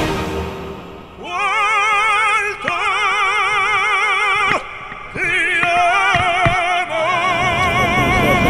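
Background music: a singer in operatic style holding long notes with strong vibrato, with short breaks between phrases about a second in and just past the middle.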